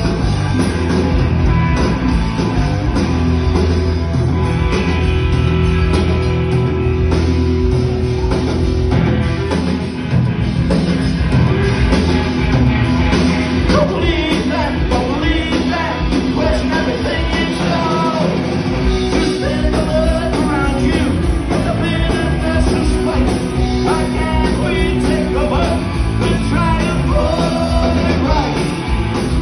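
A punk rock band playing live with electric guitars, bass and drums; a lead vocal comes in about twelve seconds in and carries on over the band.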